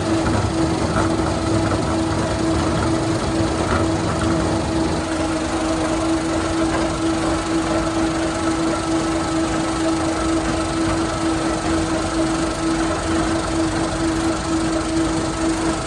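Factory machinery in a sawdust pellet plant running steadily, a loud constant mechanical din with a steady hum.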